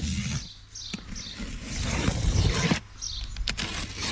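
Cardboard box being opened: a scraping sound for about two seconds, starting about a second in, with a few short clicks.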